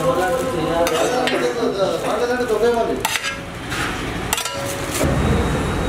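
Biryani being scooped by hand from a large aluminium pot into a foil pouch: rice rustling, with scattered clinks and scrapes against the pot and foil. Voices are in the background over the first few seconds, and a low rumble comes in near the end.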